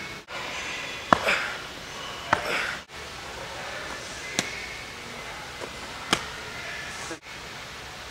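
Four sharp single smacks of boxing-gym training work over steady background noise, the first two each followed by a brief hiss. The sound briefly drops out three times.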